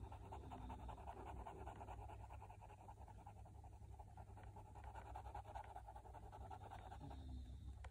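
Fineliner's fine tip scratching faintly on paper in quick, repeated colouring strokes.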